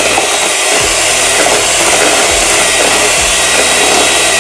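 400-watt Haeger electric hand mixer running steadily on its lowest speed, its beaters whisking thin liquid whipping cream in a plastic bowl.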